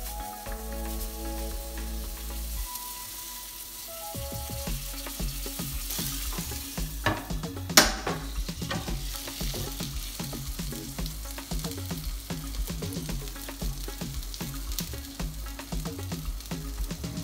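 Beef suya skewers sizzling in oil on a Dessini double-sided grill pan, with one sharp clunk about halfway through. Background music plays under it, held notes giving way to a steady beat.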